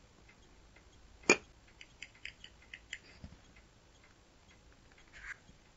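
Small handling noises from a battery protection board, 18650 cells and steel tweezers: one sharp click about a second in, then a run of light ticks, and a short rustle near the end.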